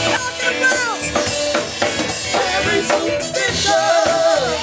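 Live band music: a drum kit keeping the beat and an electric bass under a singer's long, wavering, sliding vocal notes, which come near the start and again near the end.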